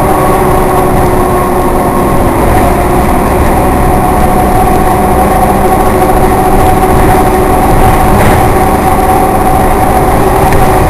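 Cabin sound of a 1996 Nova Bus LFS under way: its Cummins C8.3 diesel and Allison automatic transmission running at a steady pace, a low drone with a steady whine over road and body noise.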